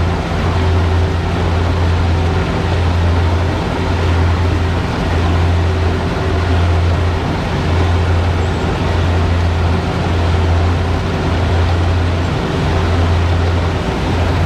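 Kubota DC70 combine harvester's diesel engine running under load while it works, a loud steady mechanical drone with a low hum that swells and dips in a slow, even beat.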